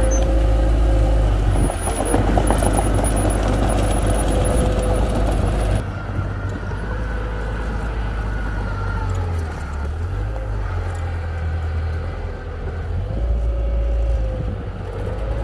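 Heavy diesel machinery engines running, with a wavering mechanical whine over a deep rumble; the sound changes abruptly about six seconds in, becoming duller.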